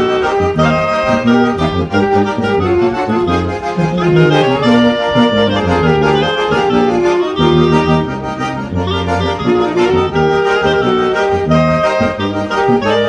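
Tuba, piano accordion, clarinet and saxophone playing a hymn together as a small ensemble, the tuba carrying a moving bass line under the accordion chords and the reed melody.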